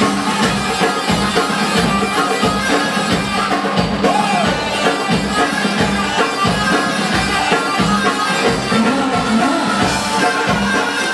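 Loud dance music with a singer over a steady, driving drum beat.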